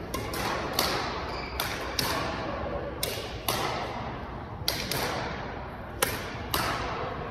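Badminton rackets striking shuttlecocks: sharp pops at irregular intervals, about one every half second to a second, each echoing briefly in a large hall.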